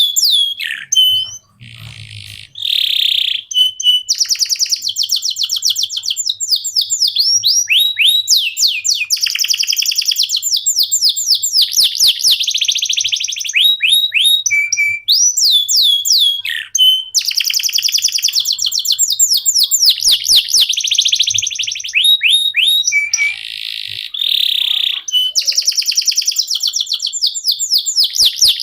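Domestic canary singing a long, continuous song: fast trills of rapidly repeated whistled notes and rolls of rising and falling sweeps, with only brief pauses between phrases.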